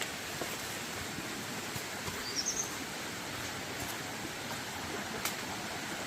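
Steady forest ambience with an even hiss of running stream water; a short, high, rising bird chirp about two seconds in, and a sharp click near the end.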